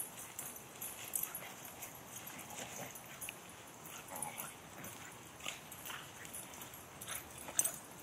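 A basset hound and a cockapoo play-wrestling, with short dog whines and yips scattered through the scuffle.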